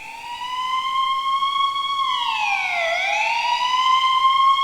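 A siren wailing: one tone rises and holds, drops about three seconds in, then climbs back up and holds again.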